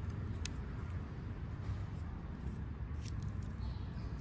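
A few light clicks from a folding multitool being handled as its tools are opened and closed, over a steady low hum.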